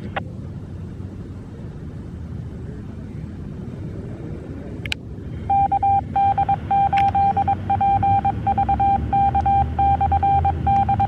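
Amateur radio repeater's Morse code identification heard through a radio's speaker: one steady beep keyed on and off in dots and dashes, starting about five and a half seconds in after a click. Before it there is only a low background rumble.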